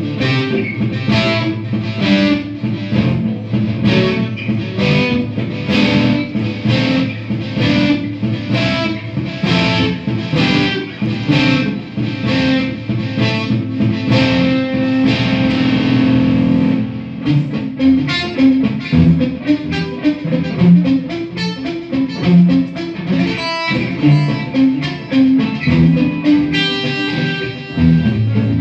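Electric guitar played through a Marshall combo amp on an overdriven crunch setting: chopped chords about two a second, then a chord held for a couple of seconds about halfway through, then quicker single-note riffing.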